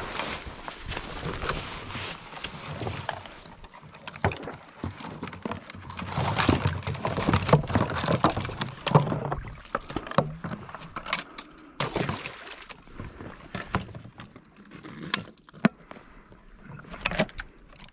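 Dry grass and reeds rustling and scraping against the camera as someone pushes through them on foot, with irregular crunches and knocks.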